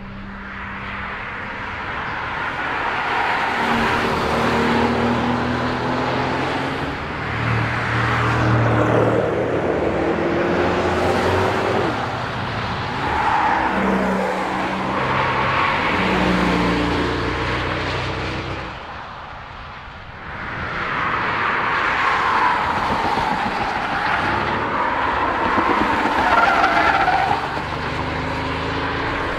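Mercedes S-Class Coupe prototype driven hard through track corners: the engine revs rise and fall through the gears over tyre noise. The sound fades about two-thirds of the way through, then builds again as the car comes by once more.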